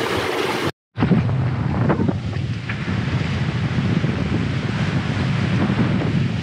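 Wind buffeting the microphone over the rush and splash of a Leopard 45 sailing catamaran's foaming wake as it sails along at speed. The sound cuts out briefly just under a second in, then the wind-and-water roar goes on steadily.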